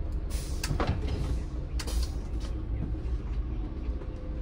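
City bus on the move, heard from inside: a steady low engine and road rumble, with a few short rattles or knocks from the body about half a second in and again about two seconds in.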